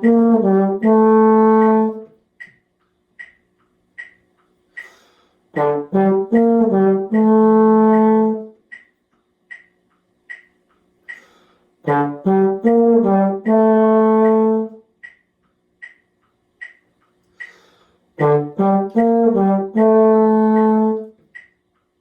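A low brass instrument plays a short five-note phrase four times, each run ending on a longer held note. Between the phrases a metronome ticks steadily, about once every 0.8 s.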